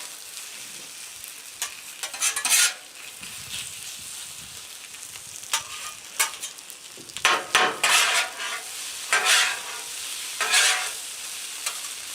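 Chicken pieces sizzling on a hot flat-top griddle, with a metal spatula scraping and turning them in short strokes every second or two.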